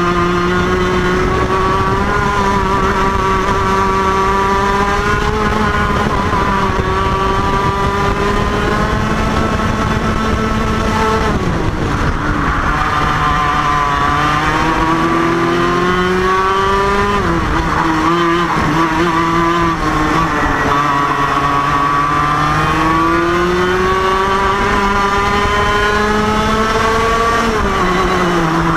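IAME KA100 100cc two-stroke kart engines racing flat out in a close pack: a loud, steady wail whose pitch climbs along each straight and drops sharply under braking for a corner, three times.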